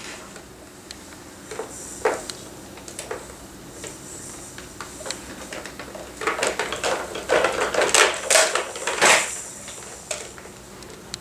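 Plastic toys and frame of a Bright Starts Activity Jumper clacking and rattling as a baby plays and bounces in it: a few scattered knocks at first, then a busy run of clatter from about six to nine seconds in.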